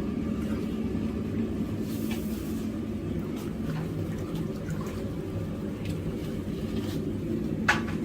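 Propane forge burner running with a steady low rumble, with faint ticks and one sharp click near the end.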